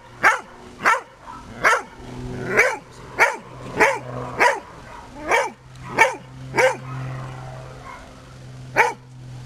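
Vizsla barking over and over, about ten sharp barks at a steady pace, a pause of about two seconds, then one more bark near the end: a rescue dog's bark indication at a found person.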